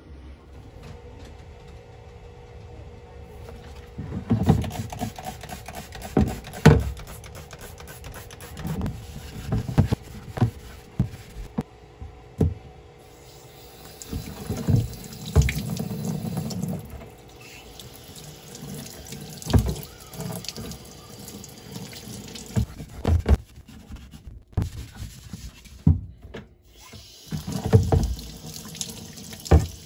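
Tap water running into a utility sink while the wooden stock of a Carcano M91 rifle is washed and scrubbed, starting about four seconds in. Irregular knocks and bumps sound as the stock and hands are moved about in the sink.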